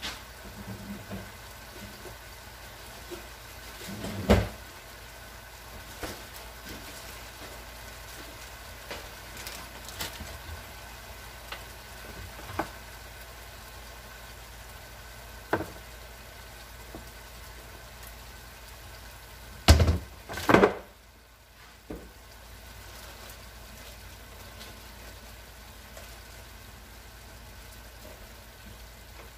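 Kitchen handling sounds: scattered knocks and clatters of things being moved and set down, two louder ones close together about twenty seconds in, over a steady background hiss.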